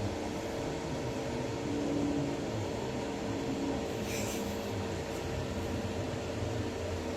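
TIG welding machine humming steadily with a constant tone, and a brief hiss about four seconds in.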